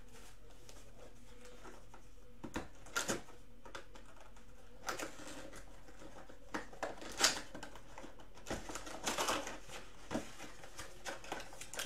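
A cardboard trading-card mega box being opened by hand: scattered short clicks, taps and rustles of cardboard and card packs being handled.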